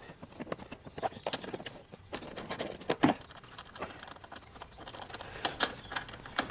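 Light, irregular clicks and taps of hand tools working on the shock-tower bolts, with a sharper knock about three seconds in.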